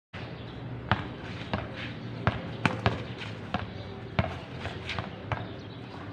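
Basketball being dribbled on a hard outdoor court: sharp bounces at an uneven pace of roughly two a second.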